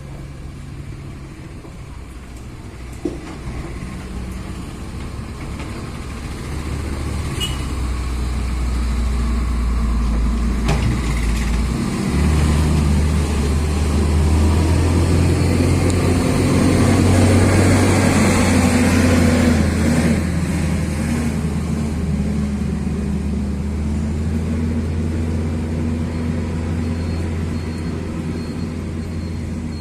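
A heavy engine running with a steady low drone. It builds up over the first half, shifts pitch about twelve seconds in, is loudest just past the middle, then eases off a little.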